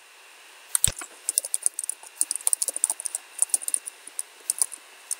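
Typing on a computer keyboard: a quick run of key clicks lasting about three seconds, after a single thump about a second in.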